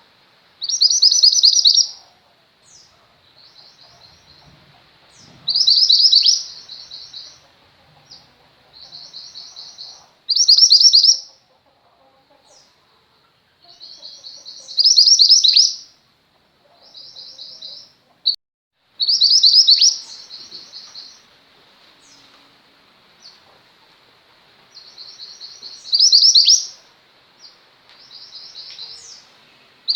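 Female mantenan gunung songbird singing: loud, high, rapid trilled phrases about a second long, repeated every four to five seconds, with softer trills in between.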